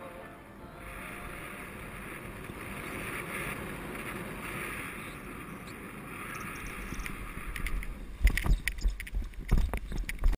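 Airflow rushing over the camera mic as a paraglider glides in low to land, a steady hiss. About eight seconds in it gives way to loud, irregular thumps and buffeting as the pilot touches down on the grass.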